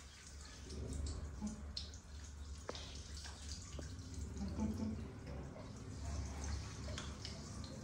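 Water from a handheld shower head running and dripping onto a small monkey's hand and the tiled floor, with a few light clicks, over a steady low hum.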